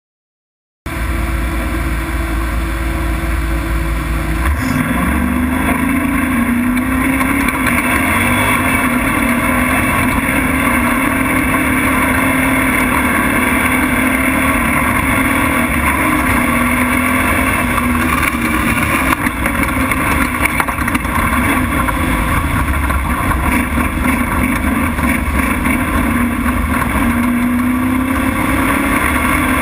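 Prerunner race truck engine running loud over a dirt track. It rises sharply in pitch about four seconds in, then holds at high revs, with rough road and body noise underneath.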